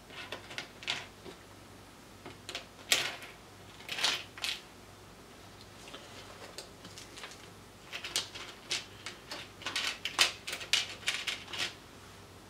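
Irregular clicks and light clatter of small electronic parts, such as pin-header strips, being handled in a clear plastic compartment box. They come in clusters: a few near the start, a group around three to four and a half seconds in, and a dense run from about eight seconds in.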